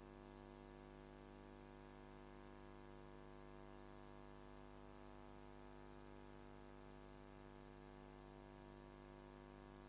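Near silence: a faint, steady electrical hum and hiss, with several unchanging tones held throughout.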